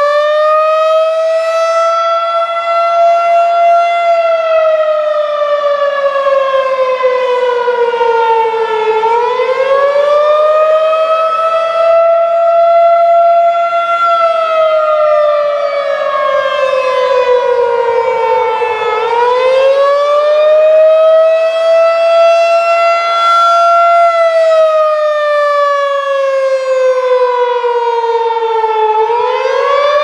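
Federal Signal 2001-SRN electronic siren sounding its attack signal from a rotating horn. It gives a wailing tone that rises for about four seconds and falls for about five, cycling roughly every ten seconds.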